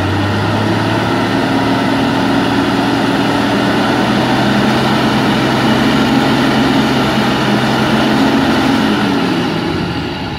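Ten-wheel dump truck's diesel engine running at steady raised revs to drive the hydraulic hoist while the loaded bed tips up; a loud, even drone that eases off near the end as the bed nears full tilt.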